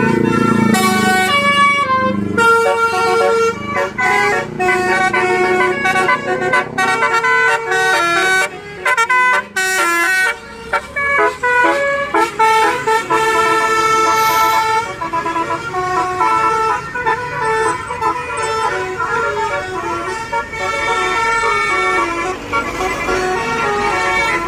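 A bus's Basuri multi-note musical air horn (a 'telolet' horn) playing a tune. Several horn tones sound together and step quickly from note to note.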